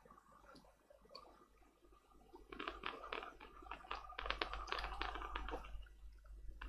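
Small plastic and glass parts of a cheap tablet being pried apart by hand: a dense, irregular run of small clicks and crackles, starting about two and a half seconds in.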